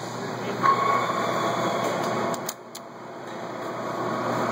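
Jones & Lamson turret lathe running with a steady mechanical hum and a whine. About two and a half seconds in come a few sharp clicks and the running noise briefly drops, then builds back up gradually.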